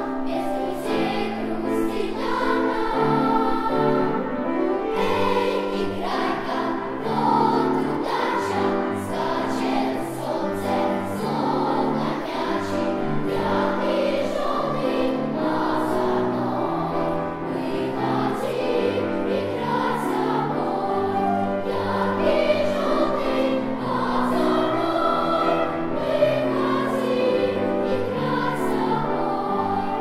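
Children's choir of girls singing a song, over instrumental accompaniment that holds low notes beneath the voices.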